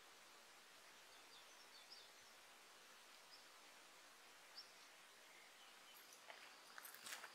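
Near silence: faint steady outdoor hiss with a few brief, faint high bird chirps. Near the end come a handful of short clicks and rustles.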